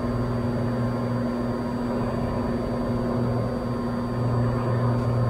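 Cessna 182's six-cylinder piston engine and propeller droning steadily in climbing flight, growing a little louder near the end.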